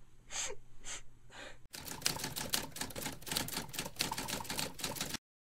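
Typewriter keys clacking rapidly and irregularly. The typing starts suddenly about a second and a half in and cuts off sharply shortly before the end.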